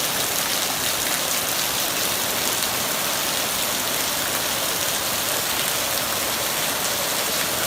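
Heavy rain pouring down steadily in a rainstorm, a constant hiss without letup.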